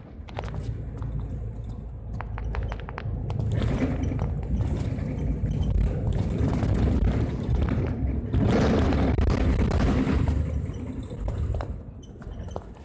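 Inside a moving Mercedes-Benz Citaro city bus: steady engine rumble and road noise, with light rattling clicks in the first few seconds. The noise grows from a few seconds in, with a louder rush for about two seconds past the middle.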